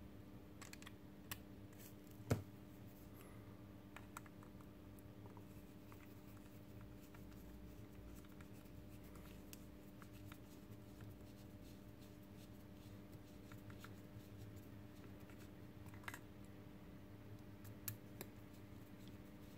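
Faint clicks and scratches of black plastic Robi robot arm parts being handled and a small screw being driven into the frame with a screwdriver, over a low steady hum. The sharpest click comes about two seconds in, with a few more scattered through.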